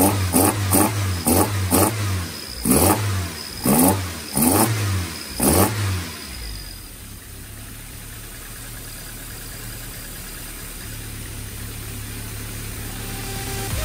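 Toyota AE86 Sprinter Trueno's 4A-GE twin-cam four-cylinder, breathing through individual throttle bodies, revved by hand in a string of short throttle blips. It then settles to a steady idle about six seconds in.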